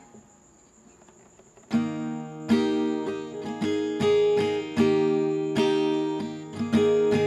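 A Fender DG-7 acoustic guitar playing a slow run of picked notes and chords, each one ringing on. The notes start after a near-quiet pause of about a second and a half.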